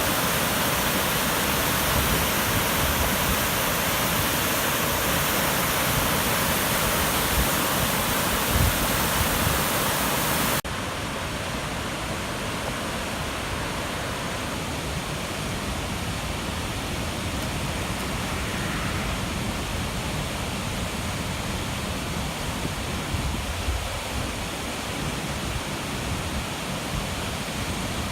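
Fast, muddy floodwater of a river swollen by typhoon rain, rushing in a steady wall of noise. About a third of the way in the sound abruptly becomes quieter and duller, then carries on steady.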